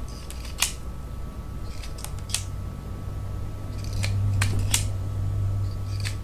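Hand wire stripper snipping and clicking as insulation is stripped from power-supply wires: a handful of sharp, separate snips, with a low hum underneath that grows louder from about halfway through.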